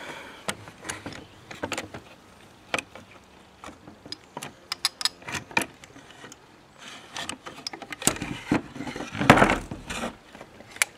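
Handling noise from an Original Model 50 air rifle being taken apart: scattered clicks, knocks and scrapes of the metal action and its wooden stock as the action is eased out. The handling gets busier in the last few seconds, with the loudest knock about nine and a half seconds in.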